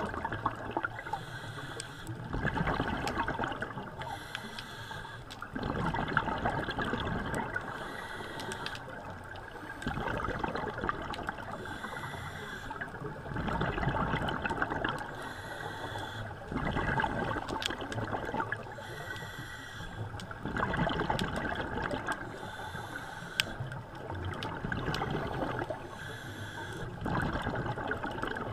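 Scuba diver breathing through a regulator underwater: bubbling rushes of exhaled air come every three to four seconds over a steady underwater hiss.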